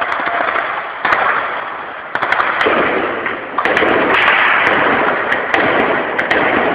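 Gunfire: loud, repeated volleys of shots echoing among buildings, with fresh surges about a second in, about two seconds in and twice more later.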